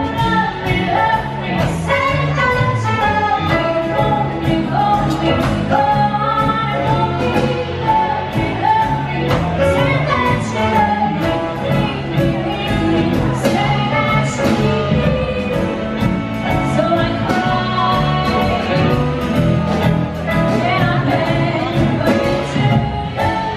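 Live band playing: a woman singing lead over a drum kit and electric guitar, with a steady drum beat.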